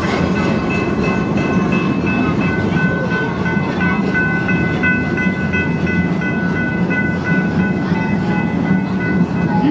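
Amusement park train rolling along its track: a steady rumble of wheels on rails, with a high-pitched wheel squeal that swells and fades.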